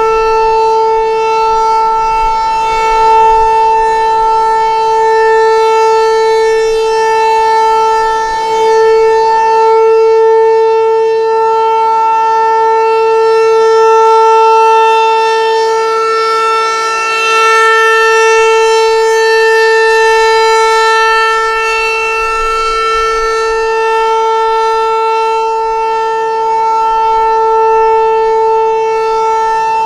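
Federal Signal 508 rotating dual-tone outdoor warning siren sounding its steady alert signal during a test. One held, unwavering pitch, loud, swelling and fading gently in loudness as the siren rotates.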